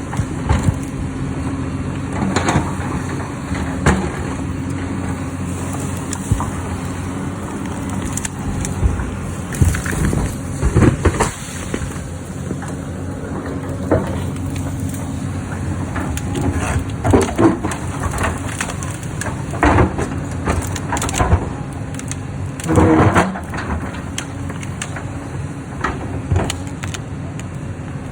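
Hyundai hydraulic excavator's diesel engine running steadily, with irregular clunks, scrapes and crashes of the bucket working through rock and stone.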